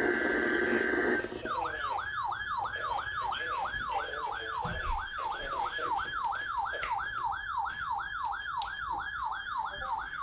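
The end of a NOAA Weather Radio SAME digital data burst, a steady buzzing tone, runs until about a second in. A weather alert radio's siren alarm then sets off, triggered by the weekly test signal: a repeating whooping tone that sweeps up and down about three times a second, with a few sharp clicks.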